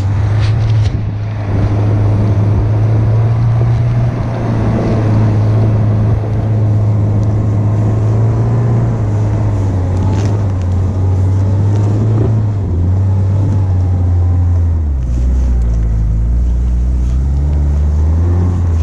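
Daihatsu Feroza 4x4's four-cylinder engine running steadily under load as it drives through deep snow on mud-terrain tyres, with a rushing noise of the tyres churning snow. The engine note drops lower twice in the last third.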